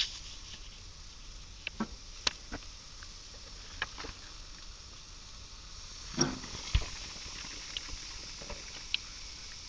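Chicken sizzling on a grill grate: a faint, steady hiss with scattered sharp pops and crackles every second or so.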